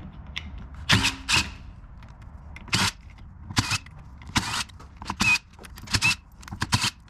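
Cordless impact driver run in about nine short bursts, each a fraction of a second, spinning out the steel screws that hold a Chrysler 727 TorqueFlite transmission valve body together.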